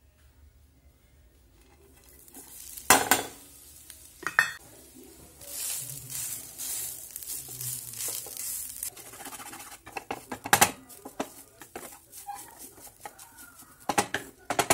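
Grated fresh coconut being stirred and scraped around a nonstick pan with a wooden spatula as it dry-roasts. Sharp knocks of the steel bowl and spatula against the pan come about three seconds in, again near ten seconds, and near the end.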